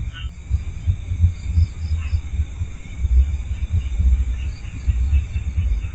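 Crickets and other insects chirping in a steady chorus of high trills and pulsing chirps, over a low, irregular rumble.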